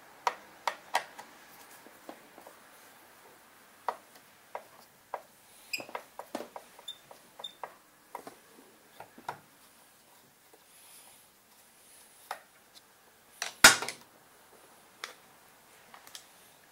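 Scattered clicks, taps and light clatter of hands working a shield loose on a Briggs & Stratton snowblower engine, with one much louder sharp knock late on.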